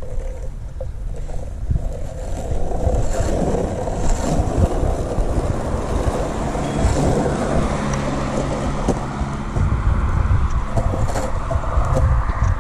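Skateboard wheels rolling over coarse asphalt: a steady low rumble with no break.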